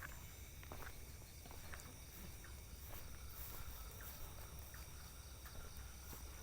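Night rice-field ambience: steady high-pitched chirring of insects over a low rumble, with faint scattered clicks and rustles like footsteps through the field.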